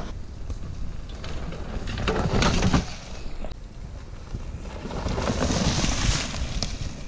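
Mountain bike tyres sliding and skidding through loose dirt in trail corners, with wind rumble on the camera microphone. The skidding hiss swells loudest about two to three seconds in and again around five to six seconds in, with a few short clicks and knocks in between.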